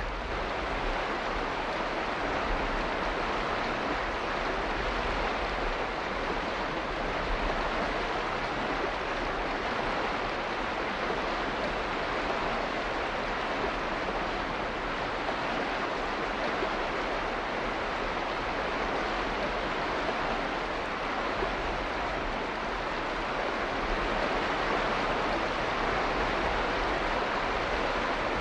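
Continuous rushing water noise, an even hiss without separate drops or splashes, getting slightly louder in the last few seconds.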